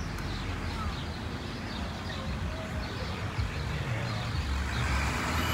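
Street traffic: a motor vehicle's engine running with a low, steady rumble, growing louder near the end as it comes closer.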